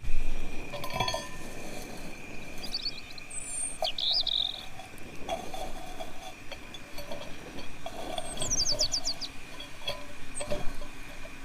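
Forest birds giving short chirps and a quick run of trilled notes over a steady high tone, with a few light clinks or knocks.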